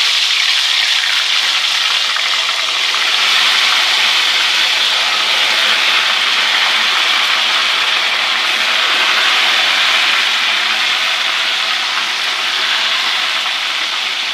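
Marinated fish pieces frying in hot ghee in a karahi: a loud, steady sizzle that eases slightly near the end.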